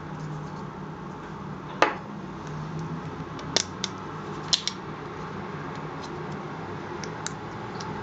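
Sharp clicks and taps of hard plastic and metal as button-cell batteries are handled and fitted into a small LED light's battery compartment. The loudest click comes about two seconds in, a quick cluster follows around four seconds, and a faint one comes near the end, all over a steady low hum.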